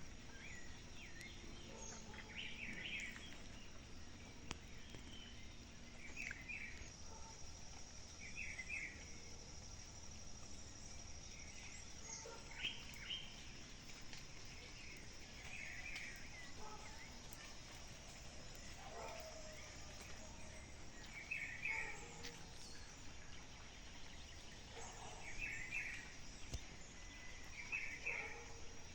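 Small birds calling outdoors: short chirping phrases every two to four seconds over a faint, steady, high-pitched background tone.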